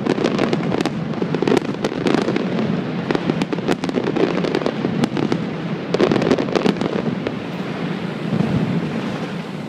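Aerial fireworks exploding in a rapid barrage: many sharp cracks and bangs over a continuous low rumble, densest near the start and again about six seconds in, thinning out near the end.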